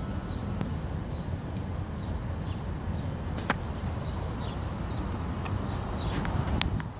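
Steady outdoor background rumble with faint, short high chirps. Sharp clicks come about three and a half seconds in and again in a quick cluster near the end.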